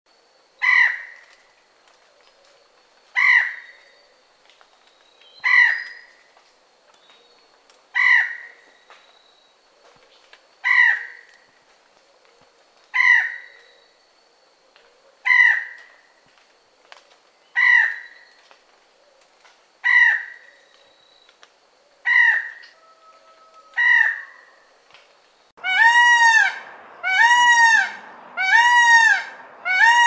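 Peacock calling: a short, sharp cry repeated about every two and a half seconds, eleven times. Near the end it changes to a run of four longer, arched cries, about one a second.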